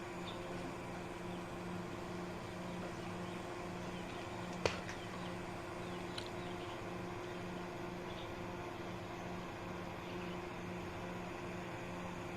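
A mini portable air conditioner's small fan motor humming steadily with a low drone. One sharp click comes almost five seconds in, and a softer click about a second and a half later.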